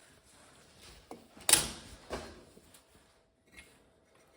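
A few short knocks and clunks from workshop parts being handled and set down, the loudest about a second and a half in.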